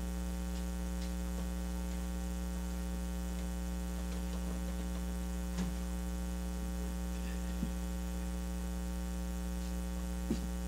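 Steady electrical mains hum with its overtones, with three faint brief clicks about five and a half, seven and a half and ten seconds in.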